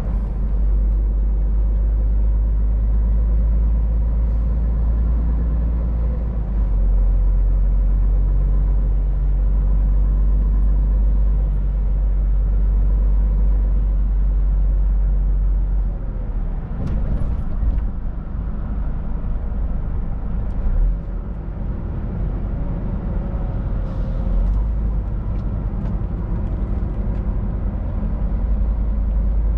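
Loaded Scania R500 truck's diesel engine running under way, a steady low drone with road rumble. About halfway through the low rumble drops, with a few brief clicks and hisses at that point and again a little later.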